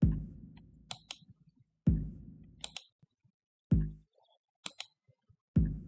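Drum-machine pattern playing in FL Studio through the Fruity Reverb 2 effect. Deep kick-like thumps come about every two seconds, each trailing off in a long fading reverb tail, with pairs of short, sharp high hits between them.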